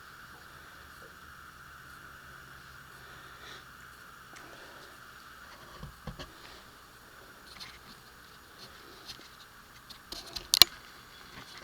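Scattered faint clicks and taps over a steady high hum, with one sharp click near the end.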